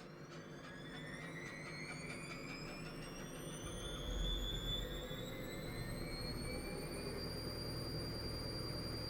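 Atlant 70U1214 washing machine running up to spin. The motor's whine rises steadily in pitch as the drum speeds up, then holds at one pitch from about seven seconds in. A low drum rumble builds about four seconds in.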